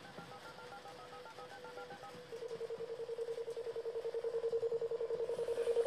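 Push-button telephone being dialled: a quick run of about a dozen touch-tone key beeps over a steady dial tone. About two seconds in, a rapid pulsing electronic tone takes over and grows steadily louder.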